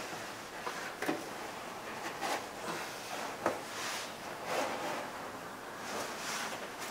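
Putty knife wrapped in a rag scraping and prying along the bottom edge of a plastic car door trim panel, with scattered light clicks and knocks.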